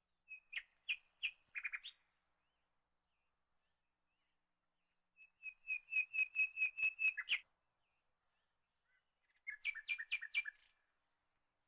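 Bird chirping: three short bursts of quick, repeated high notes, near the start, in the middle and near the end.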